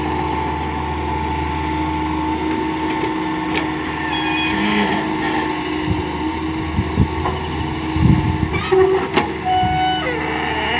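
Tata Hitachi Zaxis 210 hydraulic excavator's diesel engine running steadily as the machine digs and swings its boom, with a series of knocks and clunks from about six to nine seconds in.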